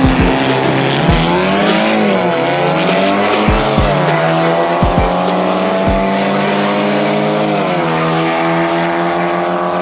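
Volkswagen MK5 GTI's turbocharged four-cylinder engine pulling under acceleration, its pitch climbing, dropping at each shift and climbing again, with a few dull thumps in the first six seconds.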